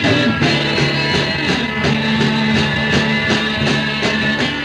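Live rock band music, an instrumental stretch without singing: electric guitar over sustained bass notes with steady drum hits.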